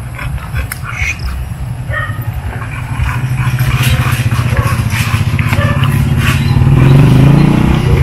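A motor vehicle engine runs steadily and grows louder from about three seconds in, its pitch rising near the end.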